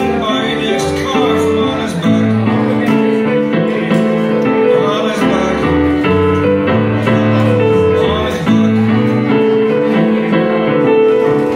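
Electronic keyboard played live: a song's chords and melody, with notes held and changing every second or so, and a man's voice singing over it at times.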